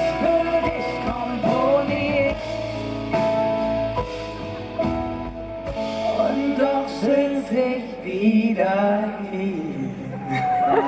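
Live band music with singing, guitar and drums, the closing part of a song. The low bass and drums thin out about six seconds in, leaving voices and guitar.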